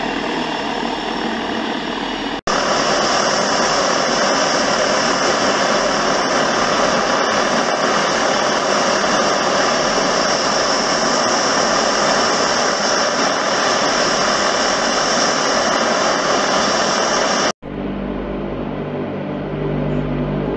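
Antonov An-22's four Kuznetsov NK-12 turboprop engines, with contra-rotating propellers, running as the aircraft taxis: a loud, steady high whine over a broad rushing noise. The sound cuts off abruptly twice; after the second cut, near the end, it is quieter and lower-pitched.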